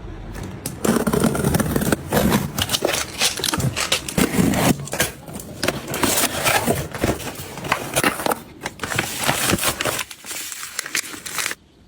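Household items being handled: irregular scraping, rustling and clicking that stops abruptly near the end.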